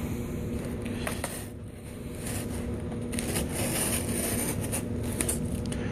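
Small hobby knife scraping and cutting through the tape and cardboard of a shipping box, a scratchy rustle with a few sharp clicks about a second in.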